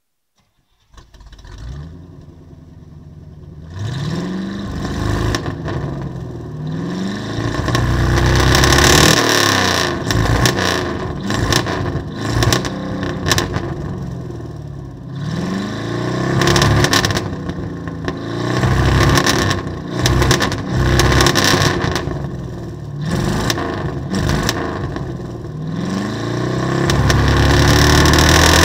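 Engine of a 1987 Chevy Scottsdale pickup starting up after sitting unused for a while. It comes to life about a second in and grows louder a few seconds later. It is then revved up and down over and over, the pitch rising and falling with each blip.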